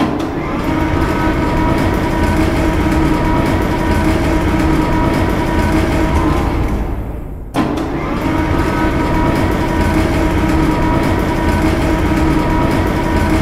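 Komatsu PC160LC hydraulic excavator's diesel engine running steadily while digging, with a steady whine over the engine. The sound fades about seven seconds in, then cuts sharply back in and runs on as before.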